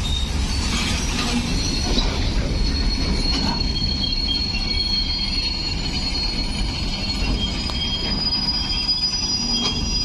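Freight train of steel BOXN open wagons rolling past, with a steady low rumble from the wheels on the rails. Thin, high-pitched wheel squeal comes in at about a second and holds steady.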